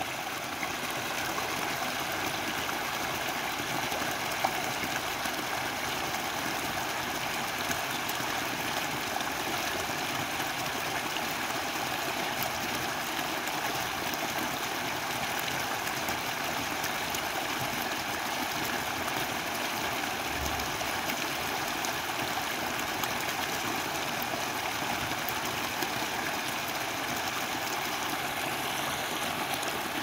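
Shallow stream flowing over stones, a steady rush of water with no change in level.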